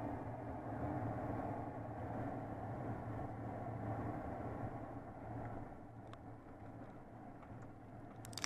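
Car driving: a steady low engine and road-noise hum that eases off a little about halfway through, with a couple of faint clicks near the end.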